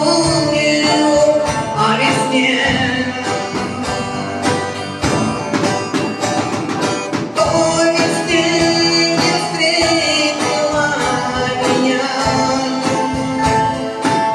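A rock song played live, led by electric guitar with band accompaniment and a steady beat.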